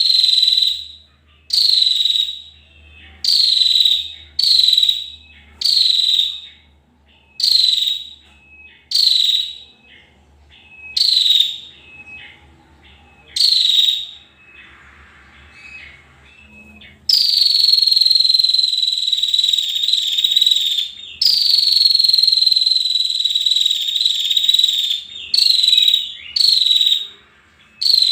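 High-pitched animal calls from a masteran, a training recording played to contest songbirds. Short calls, each sliding down onto a steady high whistle, repeat about once every one and a half seconds. About halfway through they give way to one long continuous high whistling call with a brief break, and short calls return near the end.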